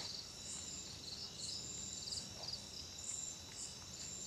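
Crickets and other insects chirping: a steady high-pitched trill with repeated short chirps over it.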